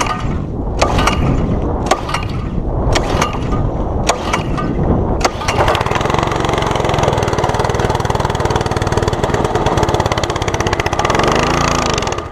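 Honda single-cylinder gas engine on a new pressure washer being pull-started cold with the choke out: several pulls about a second apart, then it catches about five seconds in and runs steadily. Its pitch dips briefly near the end.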